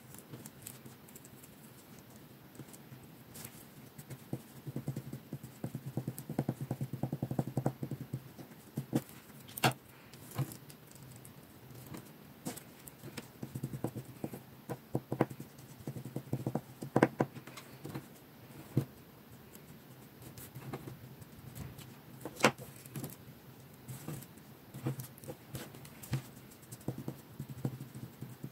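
Tips of closed metal scissors tapping and scraping on paper as they push tiny cut-paper pieces into place. Irregular sharp taps, with a run of quick rattling taps a few seconds in.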